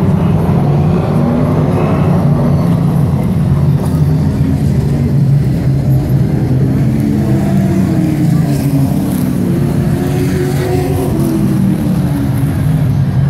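A pack of short-track race trucks running around the oval, a loud massed engine sound. About halfway through, the engine pitch rises and falls as trucks go past.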